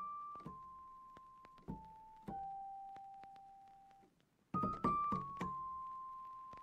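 Background music: slow solo piano, single notes struck one at a time and left to ring and fade. After a brief gap about four seconds in, a quick group of notes leads into one long held note.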